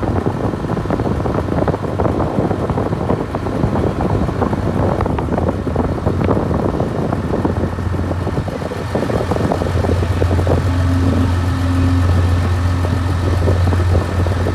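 Engine of a river boat running steadily, a low hum that grows stronger about halfway through, with wind buffeting the microphone.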